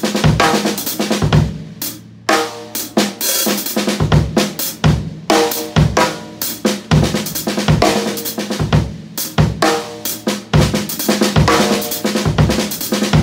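Drum kit groove of snare, bass drum and a Zildjian ZBT hi-hat, a sheet-bronze cymbal, played in a steady rhythm.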